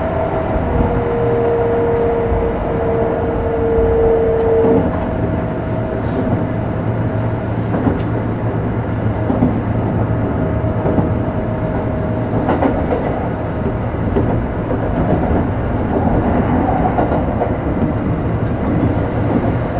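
Inside a Kintetsu 5200 series electric train motor car while it runs: a steady rumble of wheels on rail, with a whine from the drive that drifts slightly lower over the first few seconds. Now and then a faint click comes as the wheels pass rail joints.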